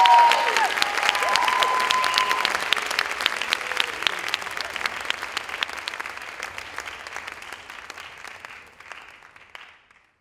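Theatre audience applauding and cheering, with a few high held cheering calls in the first couple of seconds; the clapping then fades gradually away to nothing.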